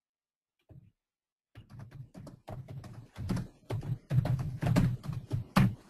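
Garbled, choppy sound on a web-conference audio line: a rapid run of clicks and broken fragments that starts about a second and a half in, after a short blip. It comes amid audio trouble on the call.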